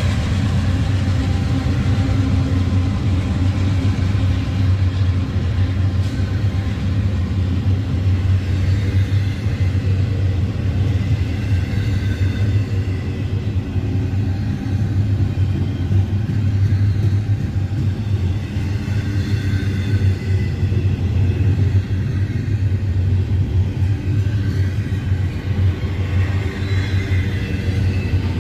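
Double-stack container freight cars rolling past at close range: a steady, loud rumble of steel wheels on rail, with faint high squeals now and then.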